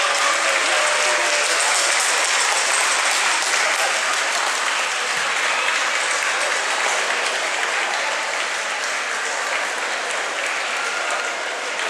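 Crowd of spectators applauding, a dense steady clapping that eases off a little toward the end.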